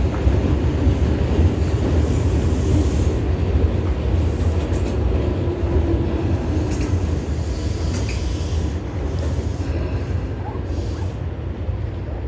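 Tobu 9000 series electric train running past at low speed with a steady low rumble and a few sharp clicks midway, easing off slightly toward the end.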